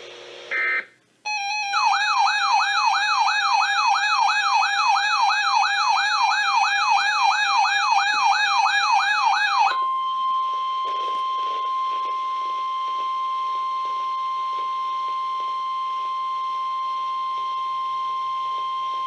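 Weather radio alert sequence. It opens with a short burst of digital header data, then a warbling siren-like alert tone sweeps up and down about three times a second for about eight seconds. It then switches to the steady 1050 Hz NOAA Weather Radio warning alarm tone, held for about ten seconds, which signals that a warning message follows.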